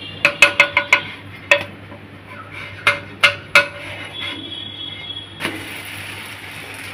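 Wooden spatula knocking against a non-stick tawa while a set dosa is worked loose and turned over: a quick run of five sharp taps with a brief metallic ring, one more a little later, then three spaced taps. About five and a half seconds in, the flipped dosa meets the hot pan and a steady sizzle starts.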